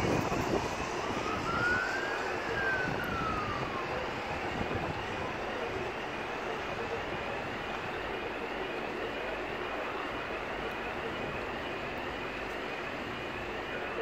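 Distant emergency-vehicle siren approaching. One slow rising-and-falling wail sounds about a second in, then a fast cycling tone at about two sweeps a second, over a steady hum of traffic. A gust of wind hits the microphone right at the start.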